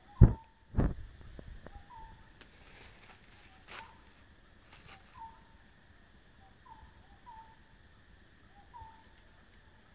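A bird calling over and over, short clipped notes that drop slightly in pitch, about one every second. Two dull thumps in the first second are louder than anything else, and a sharp click follows near the middle.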